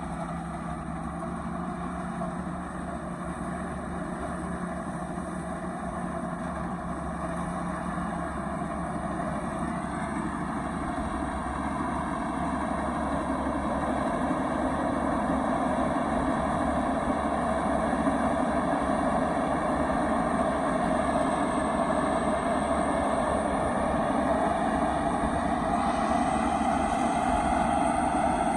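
The truck's turbocharged single-cylinder 195 diesel engine running steadily and growing gradually louder, with a faint high whine joining in the last third.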